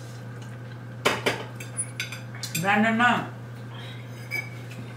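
Forks clinking and scraping on dinner plates, a few sharp clinks starting about a second in, with a brief voiced sound from someone at the table around the middle.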